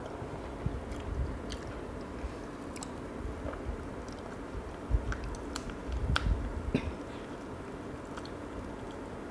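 Close-miked eating sounds: chewing, with scattered sharp crackles and clicks as the shell of a cooked spiny lobster is pried apart by hand. The loudest cracks come about halfway through.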